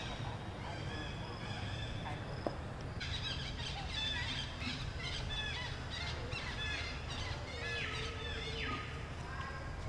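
A busy chorus of short, high, falling chirps from small animals, growing much denser about three seconds in, over a steady low rumble.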